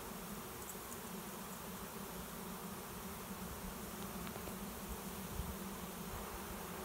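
A swarm of honey bees buzzing as they fly in and cluster on a swarm trap: a steady, even hum of many wingbeats.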